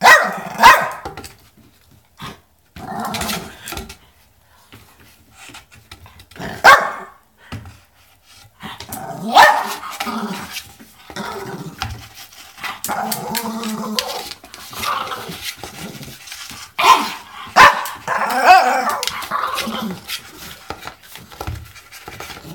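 Small wiry-haired dog barking in loud single barks, several seconds apart, and growling between them as she attacks a cardboard tube held out to her.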